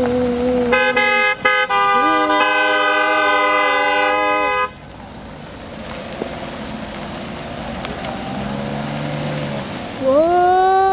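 Car horns honking as a line of cars drives past: a steady horn at the start, joined by a second, brighter horn from about a second in, both held until nearly five seconds in. Then a quieter stretch of passing traffic, and another long horn blast near the end.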